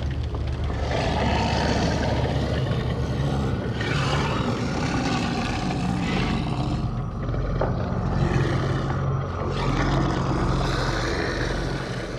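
Horror sound-design ambience: a low, rumbling drone with rough, growling swells every two to three seconds.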